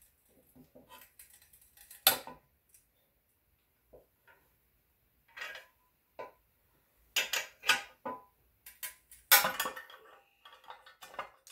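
Metal clinks and clanks of a combination wrench working the forcing screw of a small bearing puller, which is pulling a stuck front output shaft bearing from a Jeep NP231 transfer case. There is a loud clank about two seconds in and a louder one about nine seconds in, as the puller gives way and breaks.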